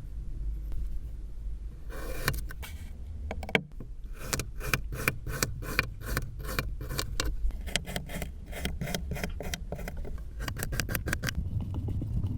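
Kinetic sand being cut and crushed: a run of crisp, crackling crunches, about three or four a second, starting about two seconds in and stopping near the end, over a low steady rumble.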